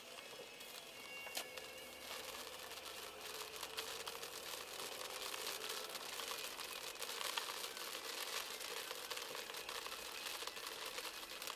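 Dense crackling and clicking heard inside a moving car, busiest around the middle.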